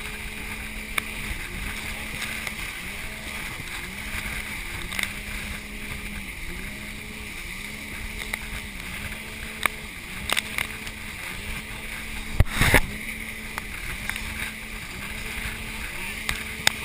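Wind and water rushing past a banana boat towed at speed by a motorboat, with a low hum that dips about every second and a half. Scattered knocks and splashes hit the tube; a loud cluster of hits about two-thirds of the way through is the loudest sound.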